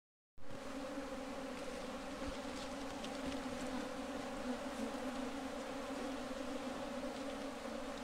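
A honeybee colony buzzing: many bees together making a steady, even hum with a low drone and a higher overtone.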